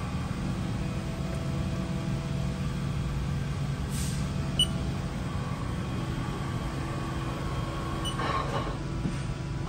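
Haas VF-4 vertical machining center running with its spindle set to 4500 rpm: a steady hum with faint steady whining tones, and a single short tick about halfway through.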